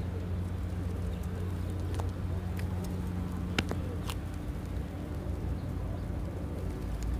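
Outdoor city ambience: a steady low hum like distant traffic, with faint scattered clicks from a flock of feral pigeons on the pavement. There is one sharper click about three and a half seconds in.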